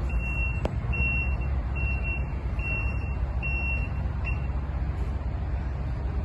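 Construction machine's warning alarm beeping, one steady high beep a little under once a second, stopping about four seconds in, over a steady low rumble.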